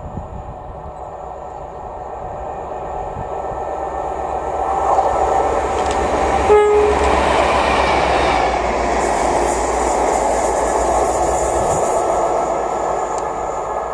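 A locomotive approaches and passes at speed, its rumble growing louder over the first six seconds. About halfway through it gives one short horn blast. Loud wheel-on-rail noise follows as it goes by, then starts to fade near the end.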